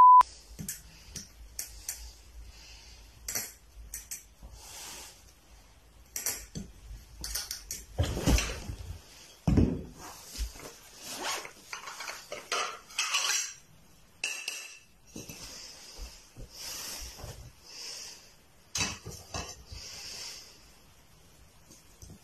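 A short test-card tone beep at the very start, then irregular clinks, clatters and knocks of plates and a glass bottle being handled, with two heavier knocks about eight and nine and a half seconds in.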